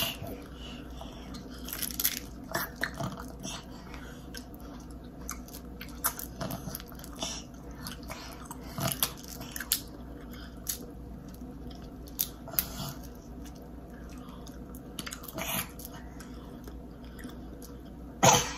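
Close-up mouth sounds of a woman and a toddler eating seafood boil: wet chewing, smacks and small irregular clicks, with one louder sharp snap near the end.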